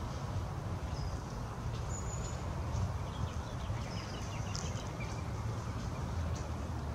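Outdoor ambience: a steady low rumble with scattered, faint, short bird chirps over it.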